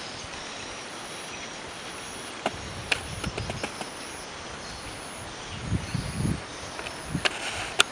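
Outdoor field ambience: a steady hiss, with a few sharp clicks and a cluster of low thumps about six seconds in.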